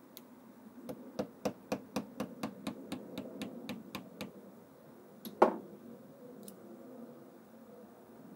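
Small screwdriver tapping metal on a ride-on car's differential clamped in a vise: a quick run of light taps, about four a second and fading, then one louder metal knock with a short ring about five seconds in.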